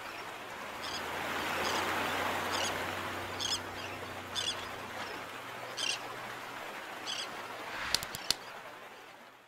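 Sea ambience: a steady wash of water with a low hum beneath it and short, high bird calls about once a second. Two sharp clicks come near the end before the sound fades out.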